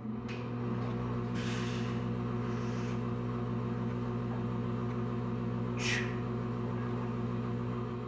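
A steady low drone with overtones, like a motor or electrical hum, holds throughout. Over it come a few short, sharp breath-like hisses, with forced breaths during the bench-press reps the likely cause.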